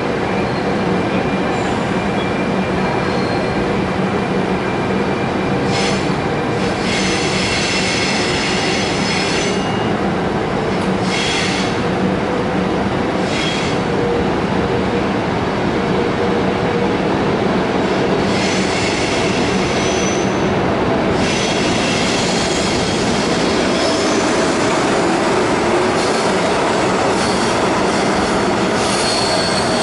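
A train running through the station, a steady rumble with a low hum under it, and the wheels squealing in several high-pitched bouts, the longest in the second half.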